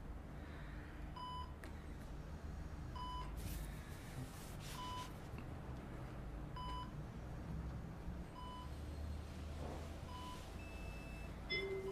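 Hospital bedside patient monitor beeping: a short single beep about every two seconds, over a low steady hum.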